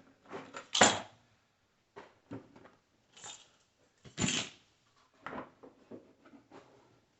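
Hand-handled tools and metal hardware: scattered clicks and clunks, with louder knocks about a second in and about four seconds in.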